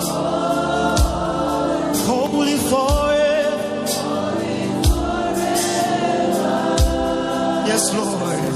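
Live gospel worship music: voices singing a drawn-out melody over held chords, with a bass drum hit about every two seconds and cymbal strokes.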